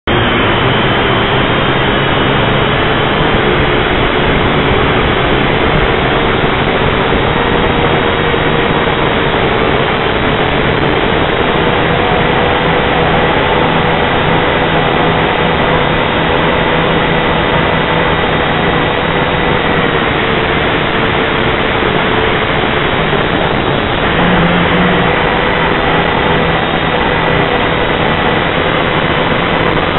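A drone's electric motors and propellers running: a loud, steady whine over a dense buzzing hiss, heard through the drone's own camera microphone.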